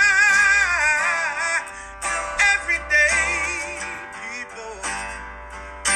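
Outro music led by strummed guitar chords. A wavering melody note fades out in the first second or two, then sharp strums come through.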